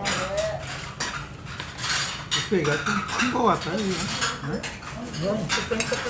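Metal spoons and chopsticks clinking against bowls and dishes at a restaurant table: a run of sharp, irregular clinks, with voices murmuring in the background.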